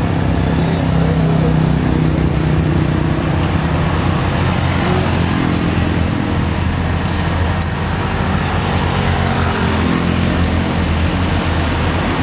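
Diesel engine of a loaded Mitsubishi Fuso 6x4 truck (220 PS) running with a steady low drone as it drives slowly past, over road noise.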